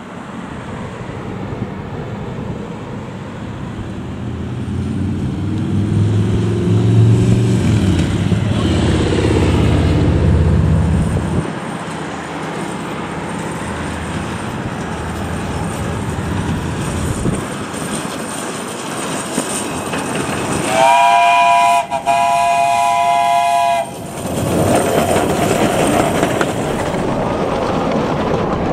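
Small steam locomotive's whistle sounding a steady chord in two blasts, a short one and then a longer one of about two seconds, about three-quarters of the way through. Before it there is a low rumble that swells and fades; after it the train runs past, clattering.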